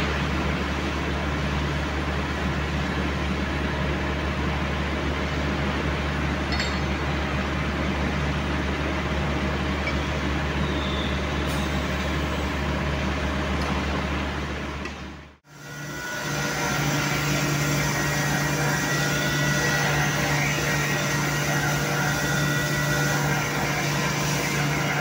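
Steady running noise of factory machine tools: first an automatic facing and centring machine with a low hum, then, after a sudden break about two-thirds of the way through, a different machine turning a large metal disc, with a steady high whine over its noise.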